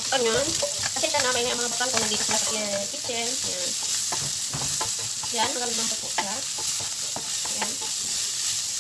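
A pot of rabbit pieces with white wine and vegetables sizzling steadily on the stove, with indistinct talking in the background.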